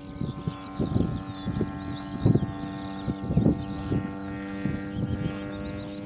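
A light propeller aircraft's engine droning steadily at an even pitch, overlaid by irregular low rumbling gusts of wind on the microphone, the loudest of them about two and three and a half seconds in.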